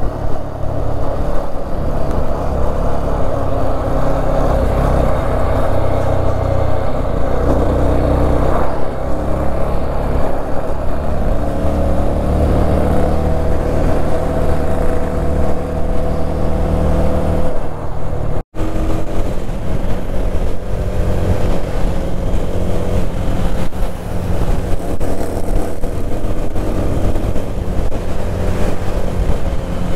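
Yezdi Scrambler's single-cylinder engine running steadily at road speed, with wind rushing over the helmet microphone. The sound cuts out for a split second about two-thirds of the way through.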